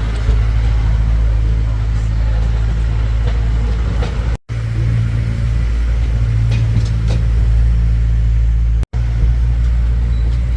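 Steady low engine rumble and hum of the tourist train running, heard from on board. The sound cuts out for an instant twice, at edits.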